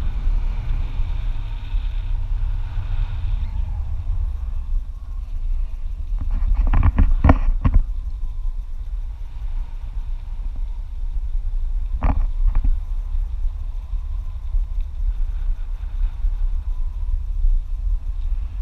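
Wind buffeting an action camera's microphone in flight under a parasail, a steady low rumble, with a cluster of short sharp sounds about seven seconds in and another around twelve seconds.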